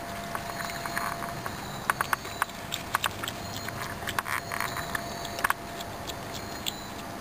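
Raccoon chewing acorns: sharp cracks and crunches of the shells between its teeth, coming at irregular intervals, with a few longer crackly bouts of chewing.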